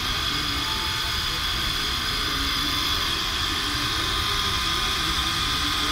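Cotton candy machine running: a steady motor hum with a constant high whine from the spinning head.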